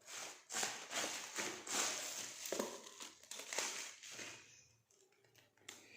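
Plastic packaging crinkling and rustling as a part is unwrapped by hand, in a run of bursts that die down after about four seconds.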